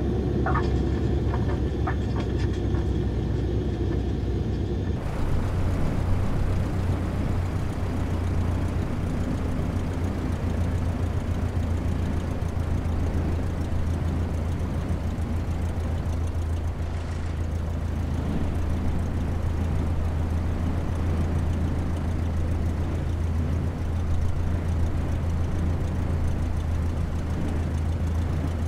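Steady low engine drone with a constant low hum under a rushing noise. A few faint ticks sound in the first two seconds, and the higher rushing noise grows fuller about five seconds in.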